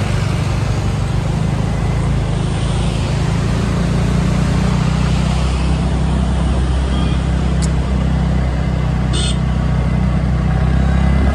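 Scooter ride: the engine runs steadily under a heavy, uneven wind rumble on the microphone. There is a short sharp tick about nine seconds in.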